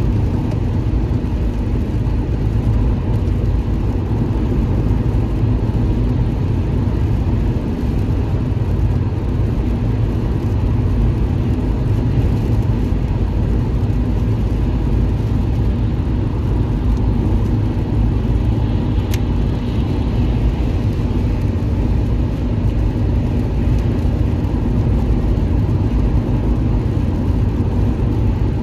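Car driving at steady highway speed: a constant low drone of tyre and engine noise.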